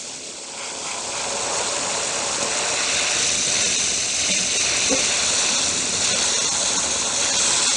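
Compressed air hissing steadily from an airbrush nozzle as it blows loose, poorly bonded clear coat flakes off a guitar's finish. The hiss swells over the first second or two, then holds steady.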